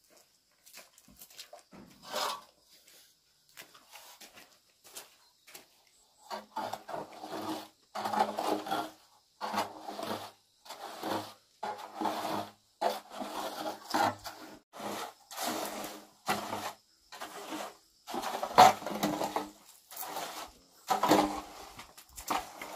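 Hand trowel scraping over cement in repeated strokes, about one a second, beginning about six seconds in after a few scattered knocks.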